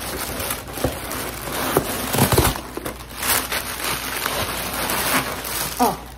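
Paper wrapping rustling and crinkling continuously as it is handled and turned over, with many small crackles.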